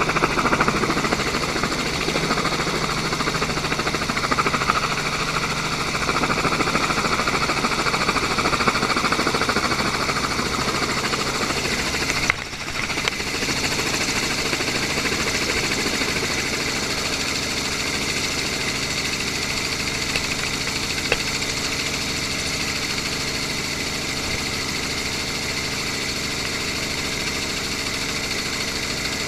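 Steady loud engine noise with a low rumble and several constant whining tones, dipping briefly about twelve seconds in.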